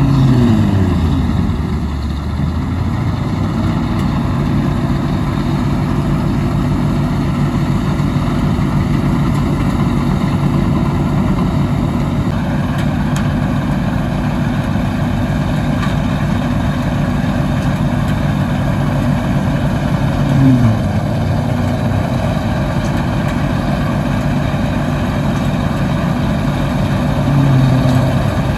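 Dronningborg D2600 combine harvester with its V8 engine running steadily under load while harvesting. The engine note falls in the first couple of seconds and dips briefly and recovers about two-thirds of the way through.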